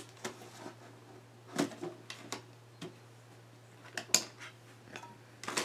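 Scattered clicks and light knocks, about a dozen, from hands working a laptop's keys and touchpad buttons, with a small cluster near the end, over a steady low hum.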